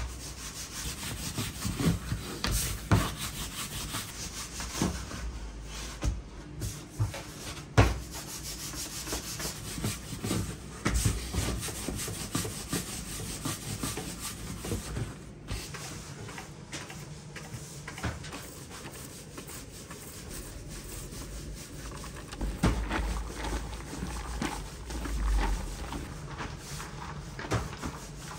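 Wooden rolling pin rolling samsa dough out into thin rounds on a floured wooden table: repeated rubbing strokes, with a few sharp knocks.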